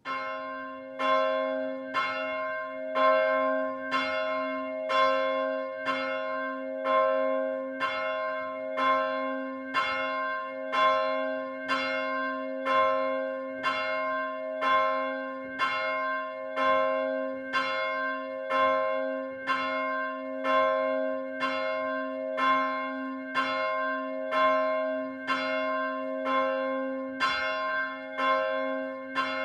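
Swinging bronze church bell, the small bell in c2 cast in 1802, struck by its clapper about once a second. Each stroke rings on into the next, so the tone never dies away.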